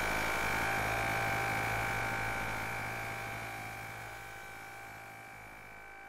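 Electronic drone of several steady held tones over a hiss, swelling briefly at the start and then fading slowly.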